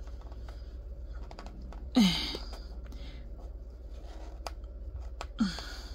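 Soft rustling and light clicking of yarn strings being handled and pulled tight into a knot around the middle of a yarn pom-pom bundle. Two short breathy voice sounds with a falling pitch come about two seconds in and near the end.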